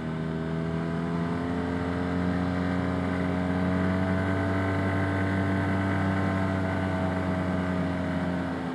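Arctic Cat Wildcat Trail UTV engine running at a steady trail speed. Its pitch rises gently, holds, then eases off slightly near the end.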